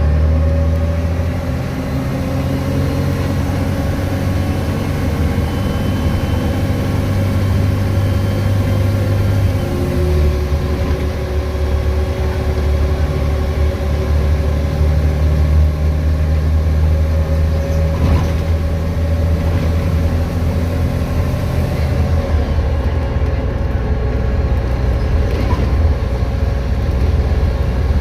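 VDL DB250 double-decker bus running under way, its engine drone steady apart from a shift in note about a third of the way in and again about three-quarters through. Over it runs the steady whine of the electric cooling fan, the 'e-fan hoover' sound.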